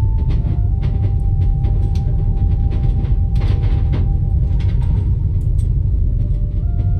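Steady low rumble of a moving train carriage, with faint scattered clicks and rattles and a short hiss about three and a half seconds in. Soft held tones that change pitch now and then sit over it.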